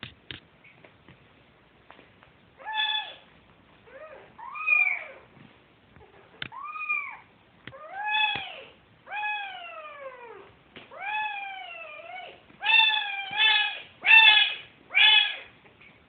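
Young kitten mewing over and over, about ten calls, several sliding down in pitch, the last four louder and coming closer together. This is a kitten's call while hunting for its mother's milk.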